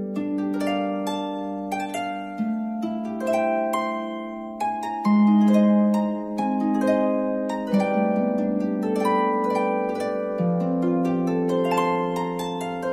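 Background music of plucked, harp-like string notes playing a gentle, flowing melody.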